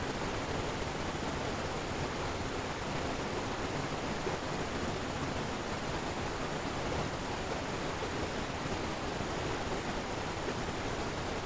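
Fast water of a stream rapid rushing steadily, an even, unbroken hiss.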